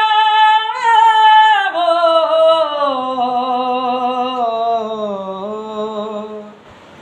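A man singing unaccompanied: a long held high note, then a slow wavering phrase that falls in pitch step by step and stops about six and a half seconds in.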